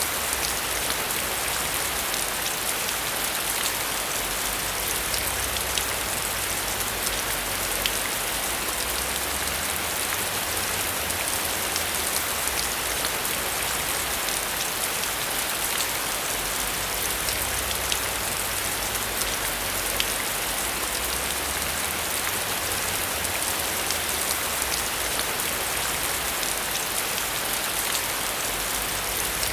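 Steady heavy rain: a dense, even hiss of falling water with scattered sharper drop ticks, over a faint low rumble that swells and fades.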